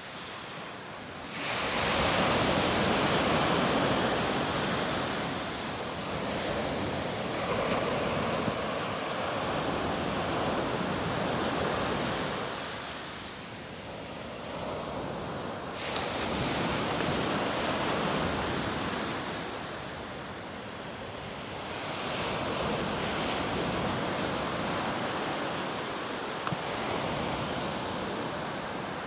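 Surf breaking and washing up a dark gravel beach. The rush of water swells and eases in long surges, one every six to eight seconds.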